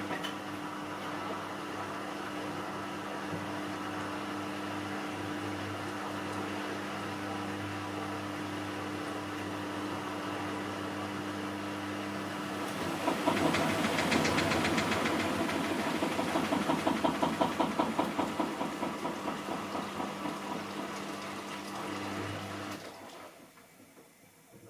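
Miele Softtronic W6544 washing machine running, with a steady motor hum. About halfway through, a louder rapid rhythmic knocking and rattling sets in, dies away gradually and stops near the end. The knocking is the sign of a loose drum on a broken drum spider.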